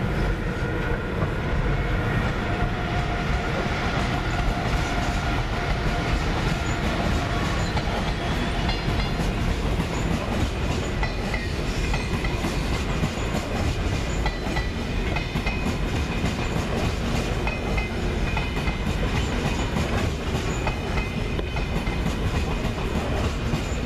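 Train of SBB EuroCity passenger coaches rolling past at low speed, with the steady rumble and rapid clatter of steel wheels on the track. Thin high tones sound in the second half.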